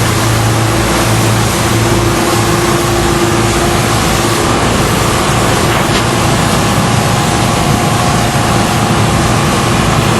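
Motorboat engine running steadily under a loud rush of wind and water.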